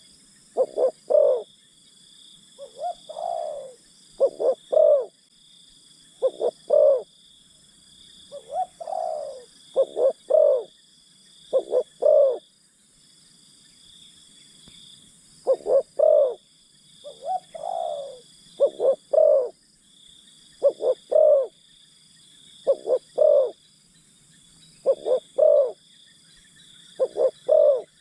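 Spotted dove (terkukur) cooing: a decoy luring wild doves, the short phrases of two or three low coos repeated every couple of seconds, with a pause about halfway through. A steady high drone of insects runs underneath.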